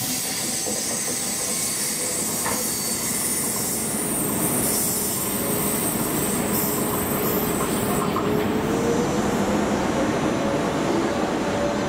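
Double-deck electric multiple unit trains running through the station on curved track, with steady high wheel squeal. From about eight seconds in a rising electric whine joins as a train picks up speed.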